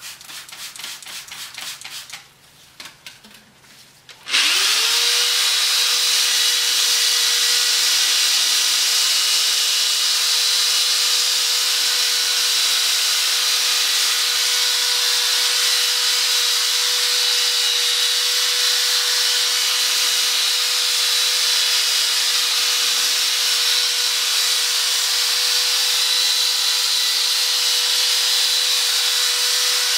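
A run of quick spray-bottle squirts wetting the lens, then about four seconds in a Black & Decker corded drill spins up and runs at a steady whine, turning a wet Trizact sanding pad against the plastic headlight lens.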